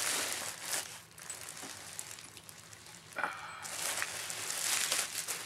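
Clear plastic packaging bag crinkling and rustling as it is handled, with a short squeak about three seconds in.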